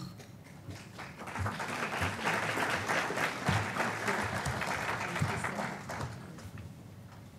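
Audience applauding, building up over the first two seconds and dying away about six seconds in.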